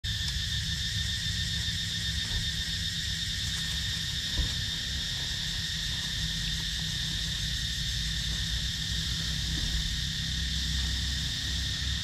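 Steady, unbroken drone of forest insects, with a low rumble underneath and a single soft knock about four seconds in.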